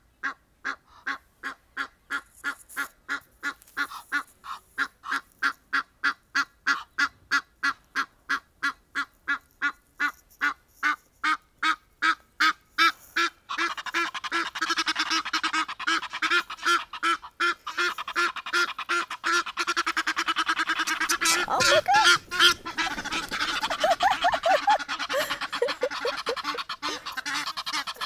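Egyptian geese calling: a rhythmic series of honking calls, about two a second and quickening, that turns about halfway into a dense, continuous cackling chorus, with lower, harsher honks joining near the end.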